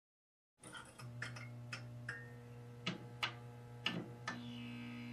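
Quiet logo-intro sound design: a low steady hum with soft, irregular clicks scattered over it, and a faint higher tone swelling in about four seconds in.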